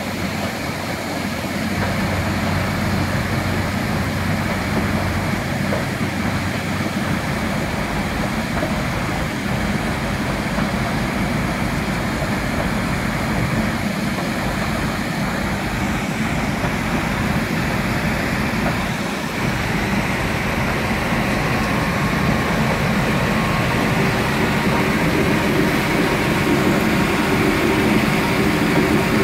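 Rotary drum (trommel) screen of a dredged-sand washing plant turning, with slurry washing through it onto the sluice boards: a steady, even mechanical rumble mixed with rushing water, dipping briefly about two-thirds of the way through.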